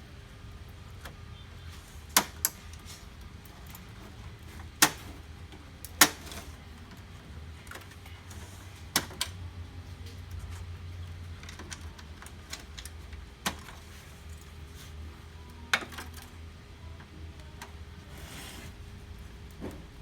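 Sharp clicks and knocks of plastic printer parts and tools being handled while a laser printer is taken apart, about eight of them spaced a few seconds apart, over a low steady hum.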